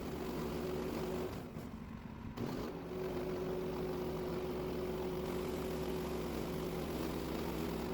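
An engine running steadily at an even speed, with a brief quieter dip about a second and a half in.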